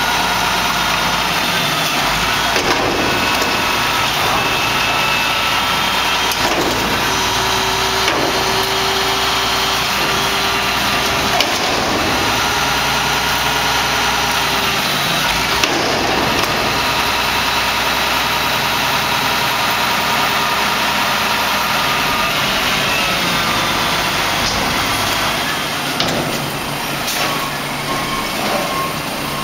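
Single-axle Mack MR front-loader garbage truck's diesel engine running steadily to drive the Pak-Mor body's hydraulics as the forks tip a dumpster over the cab and then lower it. A steady whine sits over the engine, with a few metal knocks.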